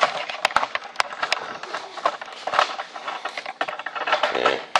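Irregular sharp knocks and clatter of hard objects being handled and set down.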